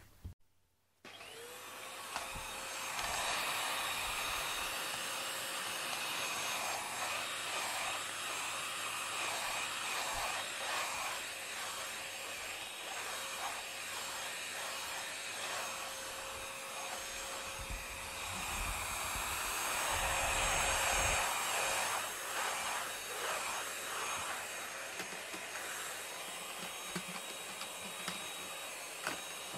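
Steady whine of an electric motor with rushing air, which spins up about a second in and then runs on evenly.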